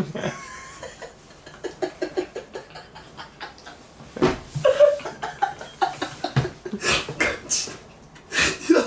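Two men laughing hard together in repeated bursts, quieter at first, then louder outbursts from about four seconds in and again near the end.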